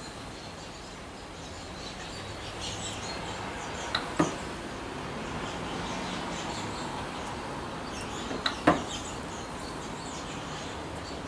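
Two pairs of sharp clicks, about four seconds and eight and a half seconds in, from handling the crimp-removal tool and .223 brass cases, over steady outdoor background noise with faint bird chirps.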